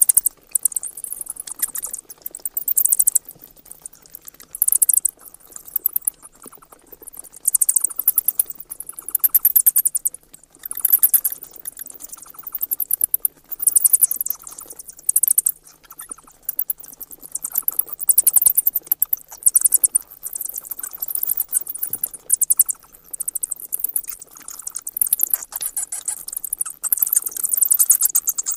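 Bats chattering: bursts of rapid, high-pitched clicking chirps, each burst a second or two long, with short pauses between.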